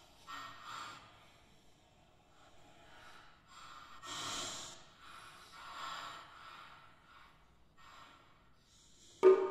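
Several soft, breath-like swells of noise, one every second or two. Near the end comes a single sharp, loud clack of a pak-koan wooden clapper with a brief ringing tone.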